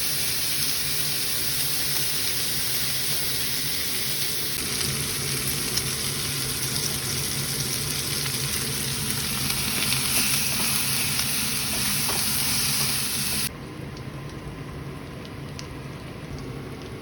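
Food sizzling steadily in a hot frying pan. About three-quarters of the way through, the sizzle drops suddenly to a quieter bubbling hiss with a few faint ticks.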